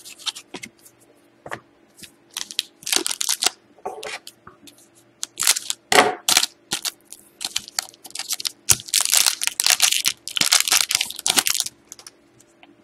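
Foil wrapper of a hockey-card pack crinkling and tearing as it is handled and ripped open, in irregular spells of crackling with short pauses between.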